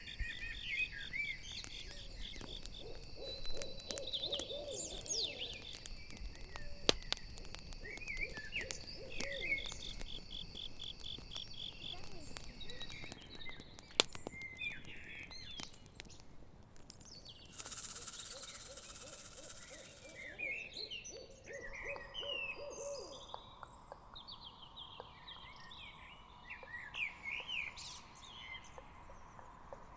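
Night forest ambience: an owl hooting in repeated series, over a campfire's sharp crackles and pops and the steady trilling of crickets that fades out about halfway through. A loud hiss lasting about three seconds comes just past the middle, and small birds chirp in the second half.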